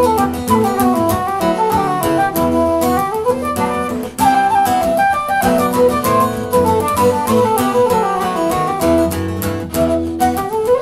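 Live acoustic music: an acoustic guitar playing chords under a melody on a small hand-held wind instrument, with a brief dip about four seconds in.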